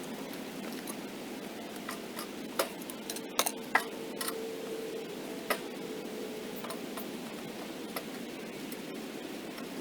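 A handful of sharp clicks and knocks, the loudest clustered about three to four seconds in, over a steady low hum.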